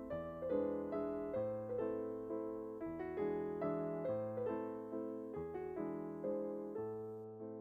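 Background piano music, with notes struck at an even, unhurried pace, each one dying away.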